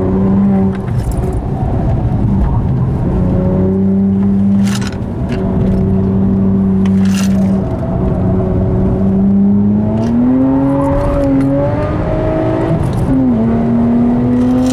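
Tuned BMW 1M Coupé's twin-turbo straight-six heard from inside the cabin while lapping a circuit. The engine note holds steady, dips briefly twice, rises about ten seconds in, then drops suddenly near thirteen seconds before climbing again.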